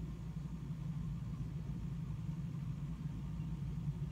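Steady low hum of background room noise, even and unchanging, with nothing else happening.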